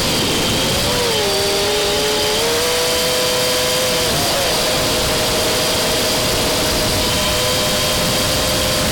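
Motors and propellers of a 6S multirotor drone whining in flight. Several close pitches dip about a second in, shift again a little past four seconds, then hold steady, over a steady rushing noise.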